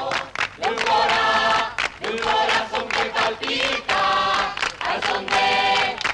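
A group of voices singing together, with several long held notes.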